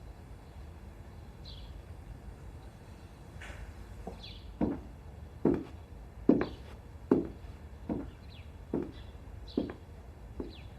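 Slow footsteps: about eight evenly spaced steps a little under a second apart, beginning about four and a half seconds in, louder in the middle and then fading. Faint bird chirps run behind them.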